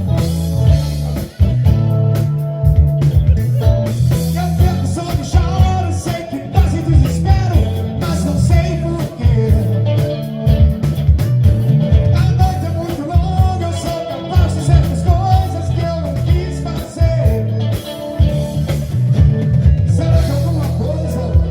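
A song with a singing voice over a steady beat, a strong bass line and guitar.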